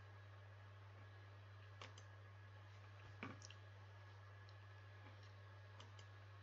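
A few faint computer mouse clicks, spread out one to two seconds apart, over a steady low hum.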